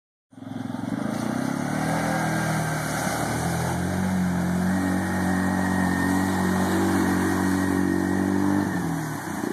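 Quad ATV engine running under steady throttle as it pushes through deep muddy water, easing off about nine seconds in.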